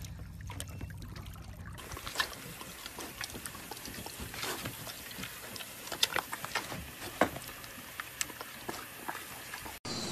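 Small pig eating an ice lolly: scattered short wet smacking and chewing sounds, the loudest about six and seven seconds in. For the first two seconds there is water sloshing with a low hum.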